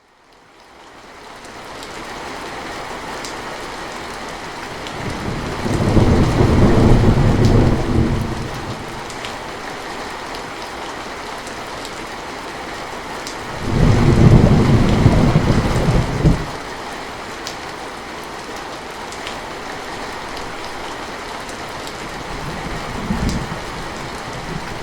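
Steady rain with scattered drop ticks, fading in over the first couple of seconds. Thunder rumbles loudly twice, each for about three seconds, then briefly and more softly near the end.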